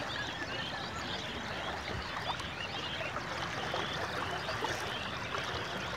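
A steady rushing noise like running water, with many small high chirps and trickles over it.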